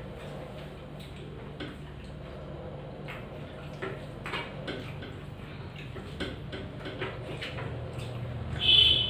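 People eating by hand from stainless-steel plates and bowls: irregular soft clicks and taps of fingers and dishes over a steady low hum. Near the end a brief, louder high-pitched ring.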